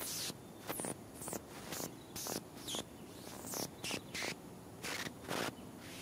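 Irregular short, sharp clicks, roughly two a second, with thin high chirps falling in pitch among them.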